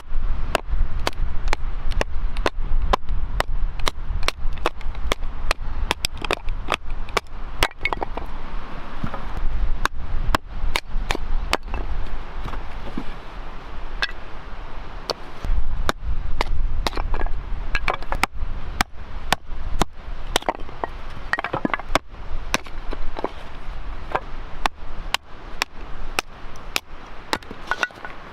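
Outdoor axe chopping firewood: a long series of sharp wooden strikes, roughly one to two a second.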